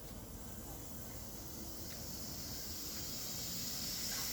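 Compressed air hissing through a pneumatic solenoid valve and air line under test, growing steadily louder toward the end.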